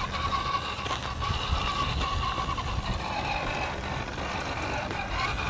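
Axial Wraith 1.9 RC rock crawler's electric motor and geartrain whining steadily as it crawls over dirt, the pitch wavering slightly with the throttle, over a low rumble.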